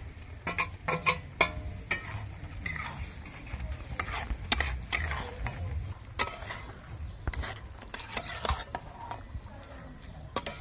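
Boiled bottle gourd greens tipped into a steel karahi of frying mustard-spice paste and stirred in with a spatula: irregular scrapes and clicks of the spatula against the steel pan over a light sizzle.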